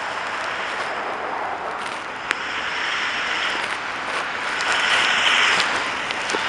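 Street traffic passing on a snow-covered road, a steady hiss of tyres that swells twice as vehicles go by, about three and five seconds in.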